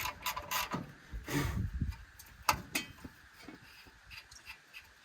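Scattered light clicks, taps and handling noises of work on the vehicle, with two sharp clicks close together about two and a half seconds in, then faint background.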